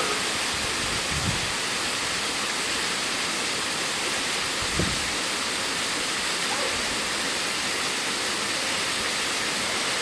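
Waterfall pouring into a rock pool: a steady, even rush of falling water. Two brief low thumps stand out, one about a second in and one near the middle.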